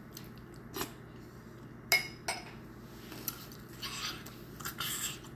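Metal spoon clinking against a small ceramic cup a few times, the loudest clink about two seconds in with a brief ring. It is followed by a couple of softer breathy sounds.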